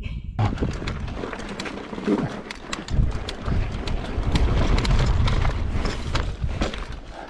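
Mountain bike riding over dirt and slickrock: tyres rolling and the bike rattling, with a rapid run of clicks and knocks as it crosses rocks, over a steady rumble of wind on the microphone.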